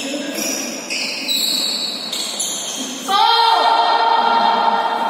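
Badminton rally on an indoor court: short, high-pitched squeaks of court shoes. About three seconds in, a loud, high held tone with many overtones starts and lasts about two seconds, most likely a voice calling out.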